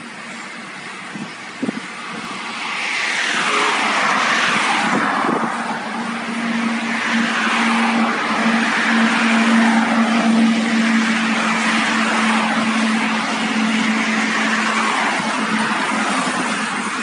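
Cars passing close on the road, their tyre noise swelling and falling away as each goes by, over the steady drone of a TCDD DE 36000-class diesel locomotive hauling a train of fuel tank cars. The locomotive's engine note holds one steady pitch from about five seconds in.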